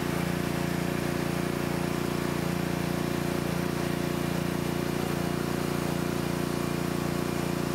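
Pressure washer running steadily with a constant pitched hum, pumping water into a steel air compressor tank to build pressure for a hydrostatic test.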